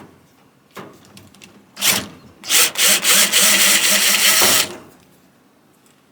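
Cordless drill-driver backing out a screw: a short spin about two seconds in, then a steady whirring run of about two seconds that stops near the end.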